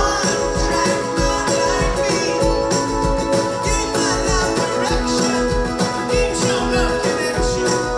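Pop-rock band playing live through an arena PA, recorded from the crowd, with a steady drum beat under the band.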